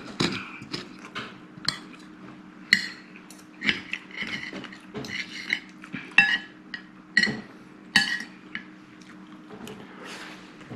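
Metal spoon and fork clinking and scraping against a ceramic bowl and plate during serving and eating. The clinks are irregular and sharp, some ringing briefly, over a low steady hum.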